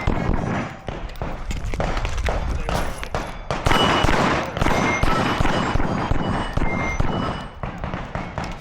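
9mm Glock 47 pistol fired in rapid strings of shots, many sharp cracks in quick succession with short pauses between strings.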